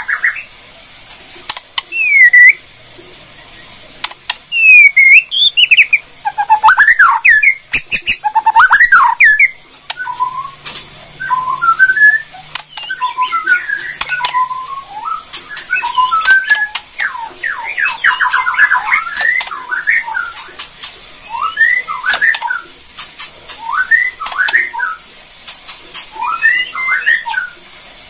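White-rumped shama (Bornean murai batu) singing a varied song of loud whistled phrases with rising and falling glides. Bursts of sharp clicking notes come about a quarter of the way in, and fast chattering runs of notes follow in the middle.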